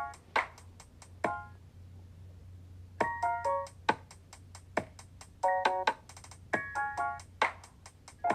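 Instrumental electronic music: short, bright keyboard notes and chords in quick runs, with sharp clicks between them and a pause of about a second and a half near the start.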